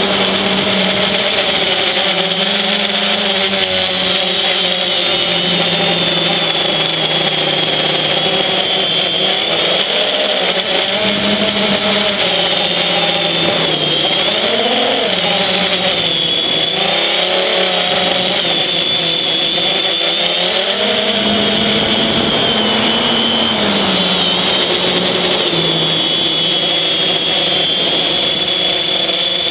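Quadcopter's four electric motors and propellers running, picked up by the GoPro on board. The pitch rises and falls again and again as the throttle changes during agile flying.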